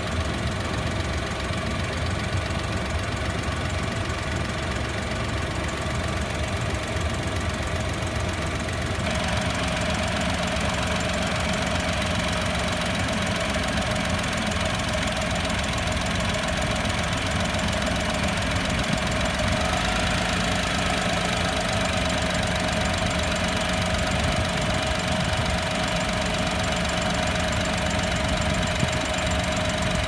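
Honda Acty HH5's small three-cylinder engine idling steadily during an air-conditioning refrigerant charge. About nine seconds in the tone changes and a steady low hum joins.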